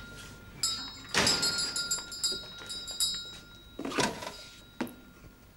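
A shop door opening with its doorbell jangling, its rings running for a couple of seconds, along with thuds of the door.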